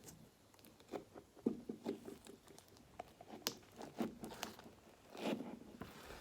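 Slime being squeezed and pressed close to a microphone: irregular sticky clicks, pops and crackles, with a denser squishy stretch about five seconds in, played through an echo effect.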